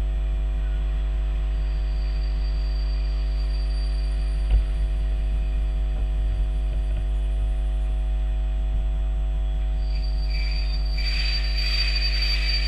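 Steady low electrical hum at a railway station as a train of passenger coaches rolls slowly away. There is a single clank about four and a half seconds in, and a high squeal with hiss builds over the last few seconds.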